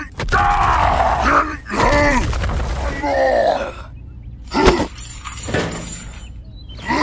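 Dubbed vocal sound effect: several drawn-out vocal calls that bend up and down in pitch over the first three and a half seconds, then a single sharp hit about a second later.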